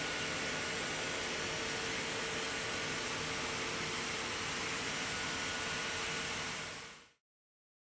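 Steady machine hiss with a faint steady hum in it, fading out to silence about seven seconds in.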